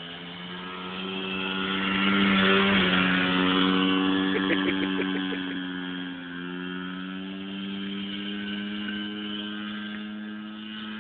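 A child's small dirt bike engine running at a steady, fairly high pitch. It grows louder to a peak about two seconds in as the bike comes close, then fades as it rides away across the field, with a short stutter of quick pulses a little before halfway.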